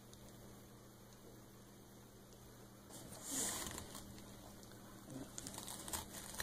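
A dog tearing a pink mesh bath sponge with her teeth: a faint steady hum at first, then a loud rustling rip about three seconds in and a run of crackly snaps and rustles near the end as the mesh is pulled apart.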